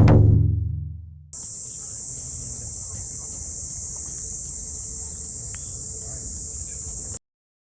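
The last note of a song rings out and fades over about a second. Then insects chirr in a steady high-pitched drone for about six seconds and cut off suddenly.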